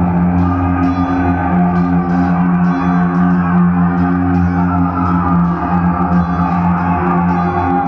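Instrumental soundtrack music: sustained low chords held throughout, with short, evenly repeated high strokes laid over them in a steady rhythm.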